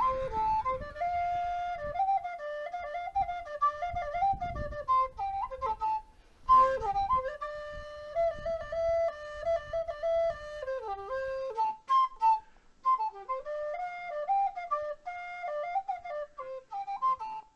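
A shepherd's flute playing a simple melody that moves in small steps. The tune breaks off briefly twice, about six and twelve seconds in, with a low rumble underneath for the first part.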